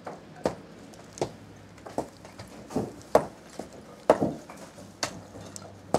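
Repeated sharp striking blows in house demolition work, roughly one a second and uneven in strength, with the loudest knocks a little past the middle.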